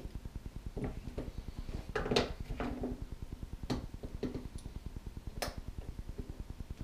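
Battery spot welder zapping 18650 lithium cells: a series of sharp snaps, about half a dozen spread through, the loudest about two seconds in, over a steady low pulsing hum.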